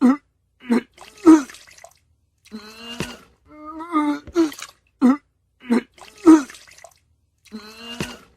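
A person retching and vomiting: voiced gagging heaves that break into short, loud, wet bursts, repeating several times.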